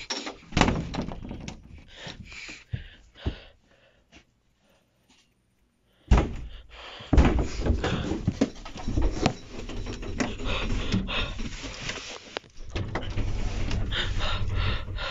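Sound from handheld found-footage camera video: knocks, thuds and rustling. It breaks off into silence about four seconds in and returns louder about two seconds later as continuous rustling and thudding.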